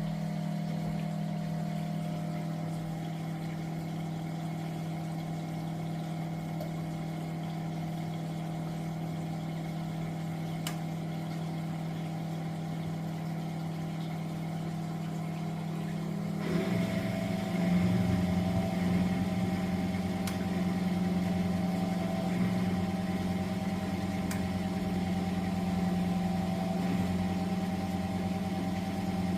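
Miele W423 washing machine running: a steady motor hum that, about sixteen seconds in, shifts and grows louder and rougher, with a low rumble added.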